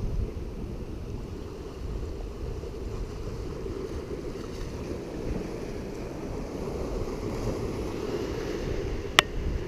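Ocean surf washing and wind buffeting the microphone, a steady low rumble. One sharp click near the end.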